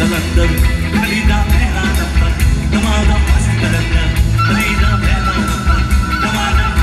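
Live rock band playing loud through the stage speakers, with drums, bass, electric guitar and singing. A high note is held steadily from a little past halfway.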